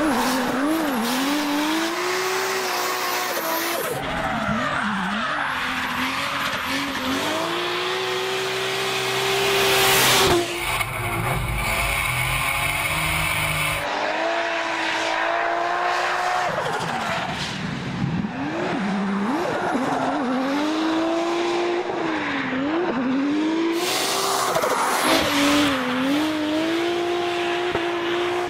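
Drift car's engine revving hard, its pitch rising and falling again and again as the car slides, over continuous tyre squeal and skidding. The sound changes abruptly twice, about ten and fourteen seconds in, where the footage is cut between runs.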